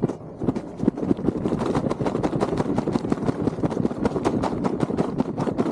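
Close, continuous rustling and crunching, many small irregular knocks a second with no let-up, like movement through dry vegetation right at the microphone.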